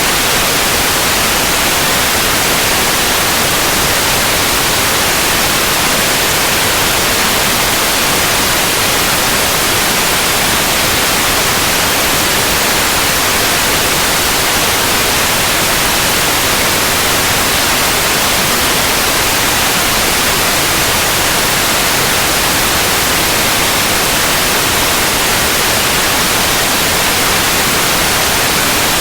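Steady, loud white noise, an even hiss with no changes or events.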